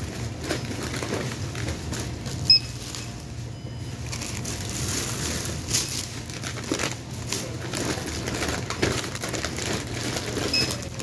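Checkout till beeping: one short high beep about two and a half seconds in and another near the end as items are rung up, over the rustle of plastic-packed goods being handled and a steady low hum.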